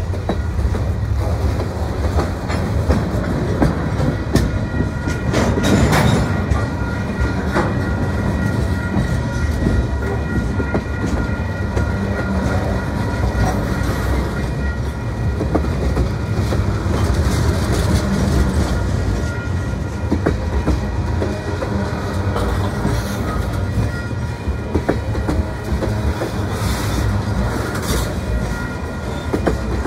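Freight cars (lumber-loaded centerbeam flatcars, then tank cars) rolling past close by: a steady rumble and clatter of steel wheels on the rails, with a sharp knock about six seconds in.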